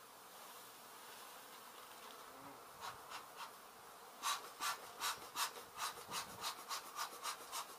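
Honey bee colony buzzing steadily. About three seconds in, a bellows bee smoker starts puffing, and from about four seconds in it settles into a quick, even rhythm of about three puffs a second, louder than the buzzing.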